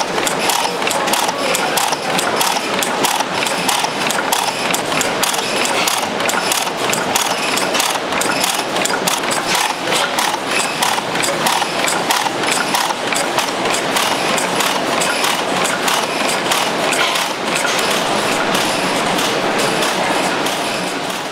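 Antique Deutz stationary gas engine running, with a fast, steady clatter of clicks from its moving parts.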